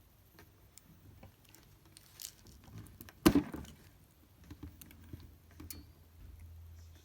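Wire strippers working on insulated copper wire: small clicks and rustles of the tool and wire, with one sharp snap about three seconds in.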